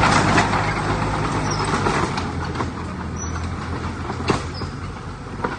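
Heavy diesel earthmoving machinery running, its low engine note under a rough grinding noise that eases after about two seconds, with a couple of sharp clanks near the end.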